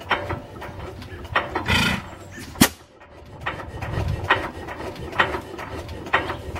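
1908 Sta-Rite 4.5 hp single-cylinder stationary gas engine running slowly, ticking and knocking about twice a second, with a louder puff and a sharp crack between about two and three seconds in. It has not run for months, was just restarted after the head was pulled and the muffler changed, and is loosening up and running a little better.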